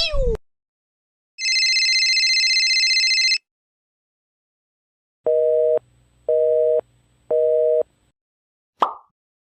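A telephone busy signal: three beeps of a low two-note tone, each about half a second long with half-second gaps. Before it comes a steady high electronic tone lasting about two seconds, and a short swish closes the stretch.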